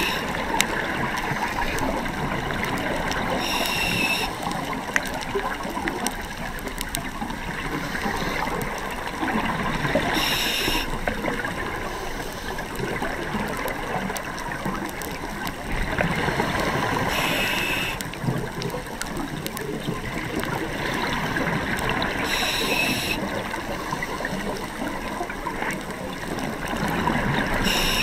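Underwater sound picked up by a diver's camera: steady bubbling and water rush, with a short hiss from a scuba regulator about every six seconds as the diver breathes.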